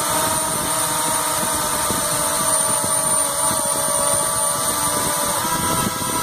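Small electric motor whining steadily at high speed, its pitch shifting about five seconds in.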